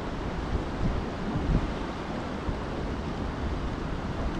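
Fast-flowing river water rushing steadily, with gusts of wind buffeting the microphone.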